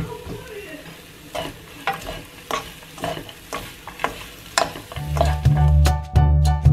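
Wooden spatulas stirring and tossing dried anchovies and sesame seeds in a nonstick wok, with a scrape or knock about twice a second. About five seconds in, music with a steady beat comes in and covers it.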